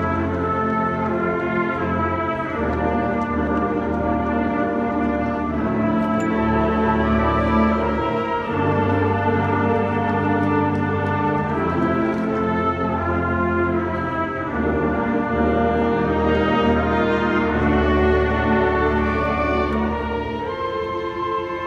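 Eighth-grade school concert band playing, brass prominent: sustained chords that change every couple of seconds, a little softer near the end.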